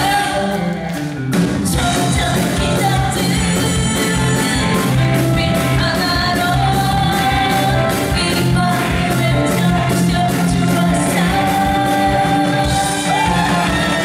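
A woman sings a Korean trot song live into a microphone, holding long sung notes. A band accompanies her with drums keeping a steady beat, and there is a short dip about a second in.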